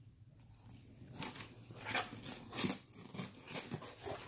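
Cardboard shipping box being opened by hand: flaps pulled back and the packaging handled, an irregular run of rustles and scrapes that starts about half a second in.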